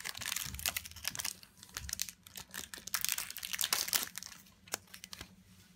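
A Pokémon trading card booster pack's foil wrapper being torn open and crinkled in the hands: dense crackling for about four seconds, then only a few faint ticks.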